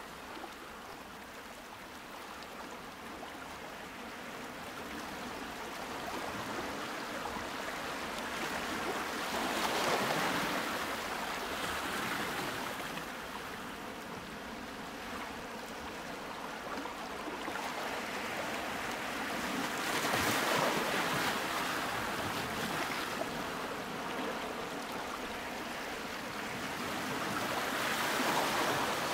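Ocean waves washing in and drawing back, swelling to a peak about every ten seconds.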